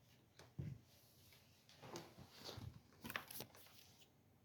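Near silence with a few faint, scattered knocks and rustles of gear being handled.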